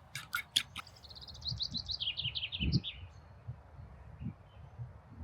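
A songbird singing a quick run of short notes that steps down in pitch over about two seconds. A few sharp clicks come just before it, and a dull low thump comes near the end of the run.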